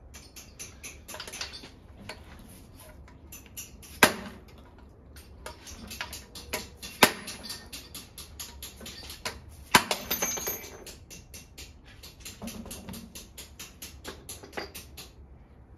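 Hammer blows on a socket extension set on the valve spring retainers of a Nissan RB20 cylinder head, knocking the valve keepers loose so the valves can be pulled. Many quick metallic taps and clicks, with three much louder strikes about four, seven and ten seconds in.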